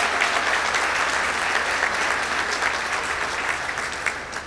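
A large crowd applauding, a dense clatter of many hands clapping that slowly fades toward the end.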